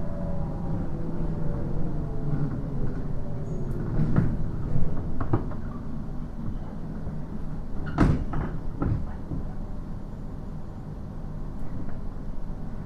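Cabin running sound of a JR East 719 series electric train: a motor and gear whine falls in pitch over the first few seconds as the train slows, under a steady rumble. Several sharp knocks and rattles come through, the loudest about eight seconds in.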